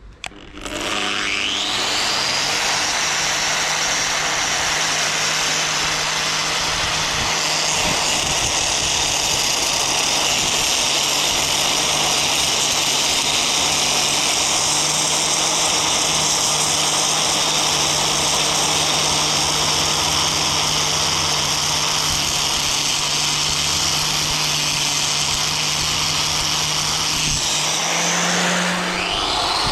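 Angle grinder spinning up with a rising whine and then cutting steadily through a rusted bolt. Near the end it slows and spins up again.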